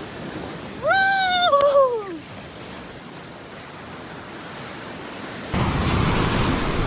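Sea surf washing on the shore. About a second in comes one high call, held and then falling in pitch. At about five and a half seconds a much louder rush of wind or surf noise cuts in suddenly.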